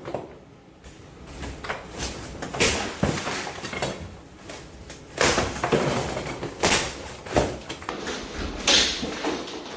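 Plaster and wood lath being worked off a wall by hand: a run of irregular knocks, cracks and scrapes, the loudest in the second half.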